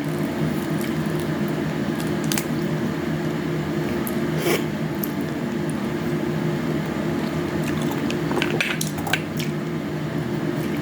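Close-up mouth sounds of eating a honey orange: chewing with scattered short smacks and clicks, over a steady low hum.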